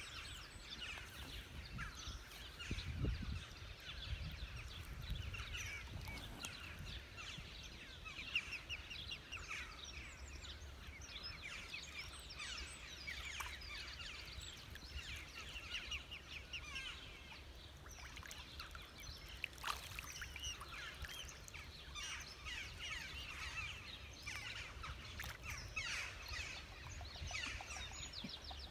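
Birds chirping and twittering continually in many short, high notes, over a low background rumble.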